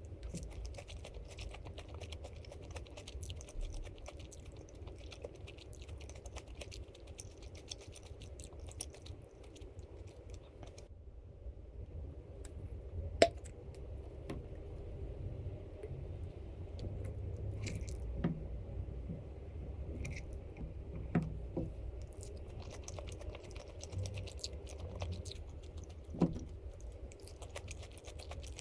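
Someone chewing and eating, with small crackly mouth and food noises and a few sharp clicks, the loudest about halfway through.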